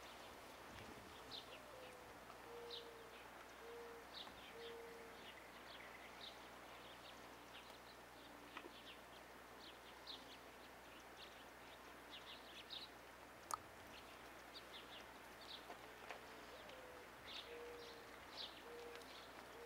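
Faint birdsong: small birds chirping, and a dove cooing in two series of short, low, even notes. There is one sharp click about halfway through.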